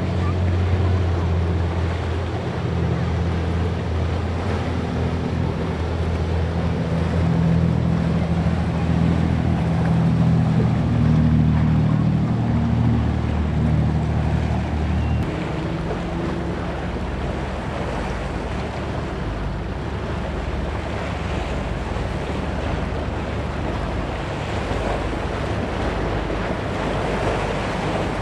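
A motorboat's engines droning low and steady, dropping away about halfway through, over constant surf and wind noise on the microphone.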